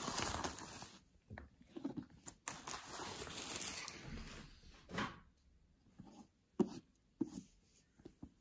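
Bubble wrap rustling and crinkling as a hardcover book is handled and pulled free of it, then a few light knocks and taps of the book being handled, one sharp tap near the end.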